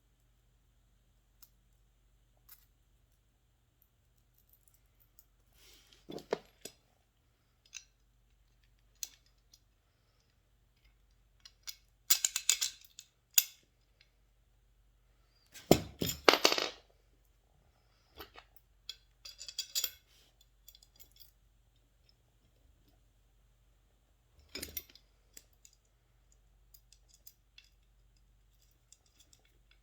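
Metal hardware and frame parts of a chicken plucker being handled and fitted together: scattered light clicks and clinks, with a few louder clanks around the middle and again later.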